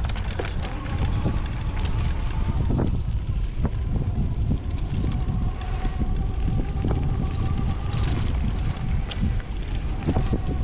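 Wind buffeting the camera microphone and tyres rumbling over a dirt and leaf-covered trail while riding an electric bike, with scattered knocks over bumps and a faint steady whine.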